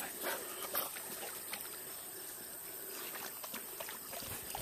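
Dogs paddling in a pond: light splashing and water lapping, with a couple of brief louder sounds in the first second.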